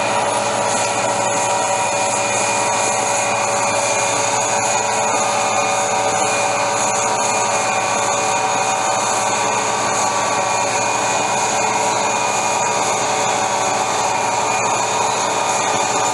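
GM GT22CW diesel locomotive of a loaded freight train running steadily: a continuous mechanical whine and rumble with several held tones that do not change.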